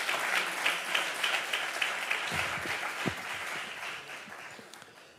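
Audience applauding at the end of a talk, the clapping thinning out and dying away over the last couple of seconds.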